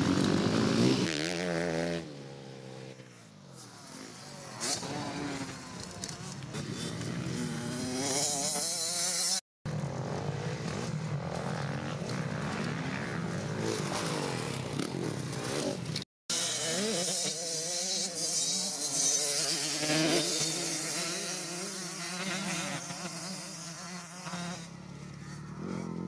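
Motocross dirt bike engines revving, their pitch rising and falling again and again as the riders open and close the throttle around the track and over jumps. The sound drops out for a moment twice.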